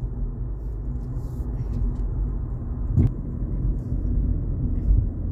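Road noise inside a moving car: a steady low rumble of the car driving, with one sharp knock about three seconds in.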